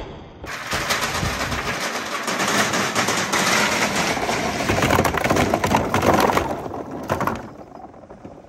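Dozens of marbles rolling and clattering down a perforated board and dropping into a tub of water: a dense, loud rattle of small knocks and splashes that cuts off about a second before the end.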